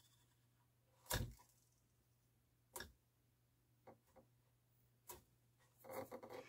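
Marantz 6200 turntable motor turned over by hand at its brass pulley shaft, giving a few faint, scattered ticks with a little cluster near the end. The motor is noisy as it turns but moves freely, not seized.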